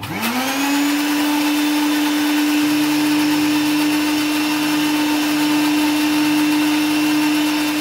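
Countertop electric blender switched on, its motor spinning up to a steady pitch within about half a second and then running evenly. It is blending soy milk and olive oil, emulsifying them into a mayonnaise.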